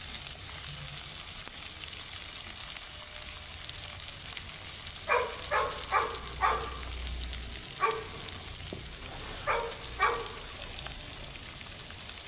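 Chopped onions sizzling in hot oil in an iron kadai, a steady frying hiss. From about five seconds in, seven short pitched calls rise above it, louder than the sizzle, in two loose groups.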